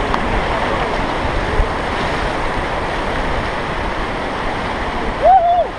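Rushing white water of a river rapid as an inflatable raft runs it: a loud, steady rush mixed with wind buffeting the microphone. Near the end comes a short pitched call.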